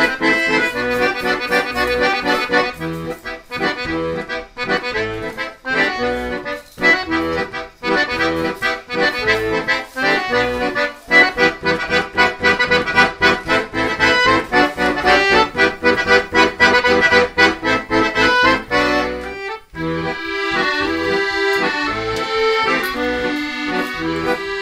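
Background music led by an accordion, a light traditional-style tune, with a brief drop about three-quarters of the way through.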